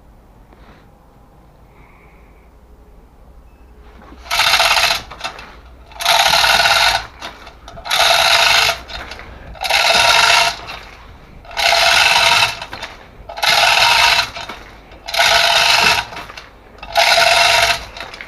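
Chain hoist being worked to winch a vehicle: from about four seconds in, a loud metallic rattle of chain and ratchet comes in even strokes, about one every 1.8 seconds, eight times.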